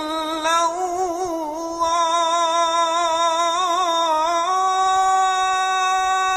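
A muezzin's voice singing the adhan, drawing out one long ornamented vowel at the end of 'ashhadu an la ilaha illa-Llah'. The pitch winds up and down through quick turns, then, about two-thirds of the way in, steps up to a higher note that is held steady.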